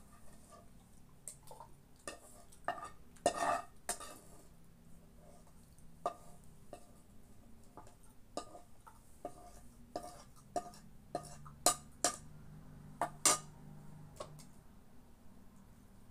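Irregular clinks and knocks of dishes being handled: a metal frying pan, plates and utensils tapping and scraping against each other, with a dozen or so sharp clinks, the loudest about three seconds in and again around twelve and thirteen seconds.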